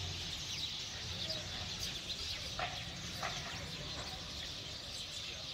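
A large flock of small birds chirping densely together in trees as they gather to roost at dusk, with two louder calls sliding downward in pitch near the middle.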